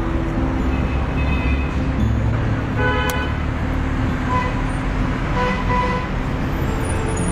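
Steady city street traffic, cars and a bus driving past, with a short car horn toot about three seconds in.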